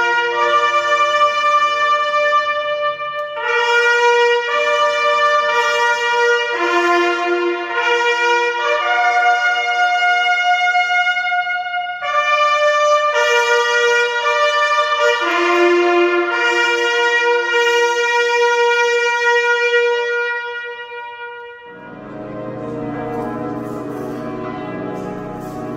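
Several herald trumpets play a slow fanfare of long held notes in harmony. About 22 seconds in, the fanfare gives way to church bells ringing.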